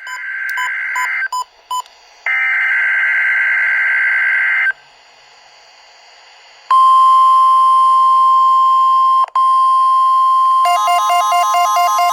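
Emergency Alert System SAME data header bursts, a buzzy digital screech in two bursts with a few short beeps, received by a Midland WR-120EZ weather radio on NOAA Weather Radio. After a two-second pause comes the steady 1050 Hz warning alarm tone. Near the end the radio's own alarm siren starts over the tone, warbling about four times a second; its late start is something the owner wonders may be a fault in the radio.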